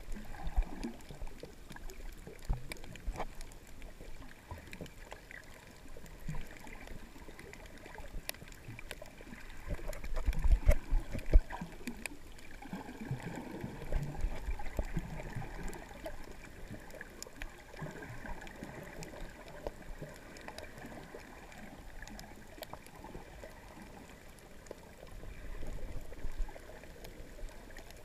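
Underwater sound picked up by an action camera in its waterproof housing: muffled gurgling and sloshing of sea water with scattered faint clicks. There are a few louder low rumbles, the strongest about ten seconds in and again near the end.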